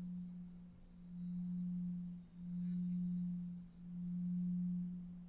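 A low, steady hum of a single pure tone that swells and fades in slow pulses about every second and a half: a background drone.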